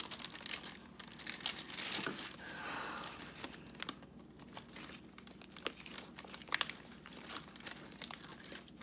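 Hands kneading and squeezing clay-and-slime dough on a sheet of thin paper: irregular crinkling and rustling of the paper with soft squishing and tearing of the dough, and one sharp click about two-thirds of the way through.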